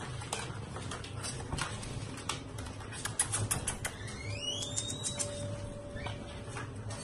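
Pit bull puppies scrabbling in a plastic laundry basket: quick clicks and scratches of claws on plastic, thickest about three to four seconds in. About four seconds in, one puppy gives a single high whine that rises in pitch.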